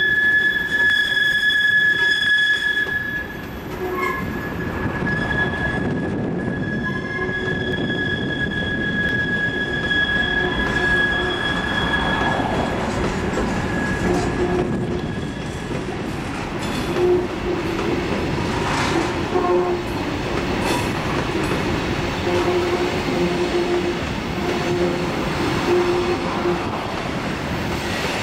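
Freight cars of a long, slow-moving Norfolk Southern train rolling round a curve, wheels squealing on the rails over the steady rumble and clatter of the wheels. A high, steady squeal is loud for the first few seconds, then weakens and dies out about halfway, and shorter, lower-pitched squeals come and go after that.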